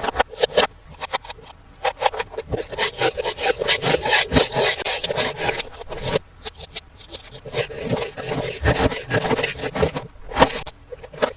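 Rapid crackling, scraping and rubbing of toy packaging being handled and opened: dense clicks with rubbing between them, busiest in the middle of the stretch.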